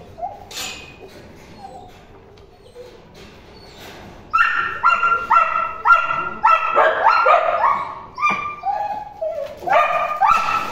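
Dogs barking in quick, high-pitched yips: a rapid run of them starts about four seconds in, and another comes near the end.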